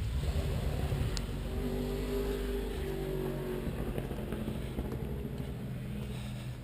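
A motor vehicle's engine running on a road, its pitch rising and falling slowly as it goes, over a steady low rumble.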